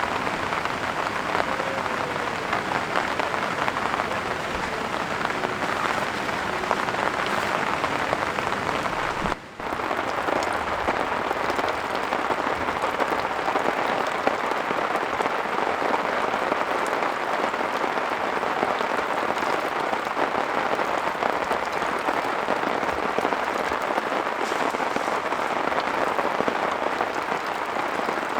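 Heavy rain falling steadily, a dense even patter. It cuts out for a moment about nine seconds in, then carries on unchanged.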